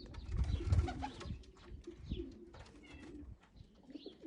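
Racing pigeons cooing at the loft, repeated low wavering coos, with scattered clicks and a brief low rumble about a second in.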